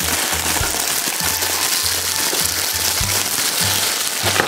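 Plastic mailer and bubble wrap crinkling and crackling densely as a package is handled and torn open. Background music with a steady bass beat plays underneath.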